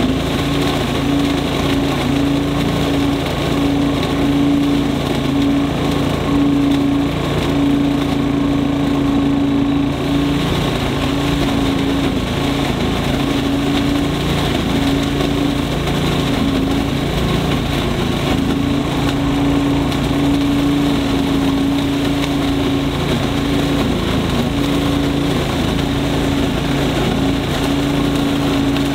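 Cyclone Rake Commander leaf vacuum's engine running steadily at working speed, with a rush of air and leaves being sucked up through the hose.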